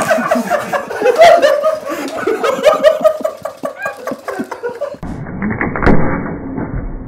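Two men laughing hard, with snickers and bits of voice, for about five seconds; then the sound cuts abruptly to a muffled, low-quality clip of steady noise with a sharp knock about a second later.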